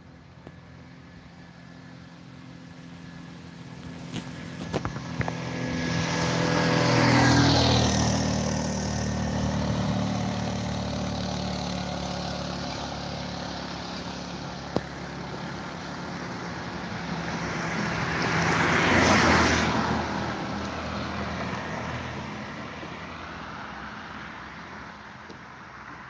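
Two motor vehicles passing close by, one after the other. The first builds up with a low engine hum and is loudest about seven seconds in. The second rises and falls as a broad rush, loudest about nineteen seconds in.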